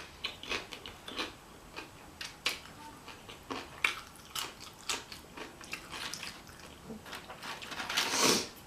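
Close-up chewing of food, with small irregular wet mouth clicks and smacks. A louder, breathier noise swells up about eight seconds in.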